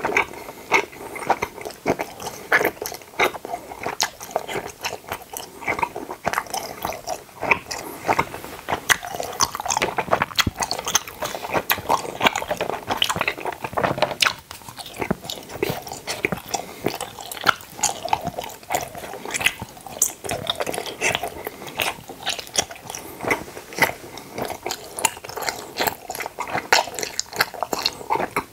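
Close-miked chewing of teeth-shaped gummy candies: a steady run of quick, wet, sticky mouth clicks and smacks as the chewy sweets are worked between the teeth.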